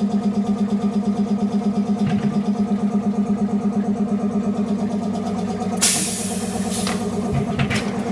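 Automatic glass-cutting machine running with a steady hum that pulses about six times a second, and a short burst of hiss about six seconds in.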